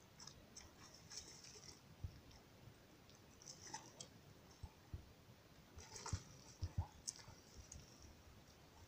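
Near silence broken by scattered faint clicks and a few soft low knocks, most of them from about six to seven seconds in.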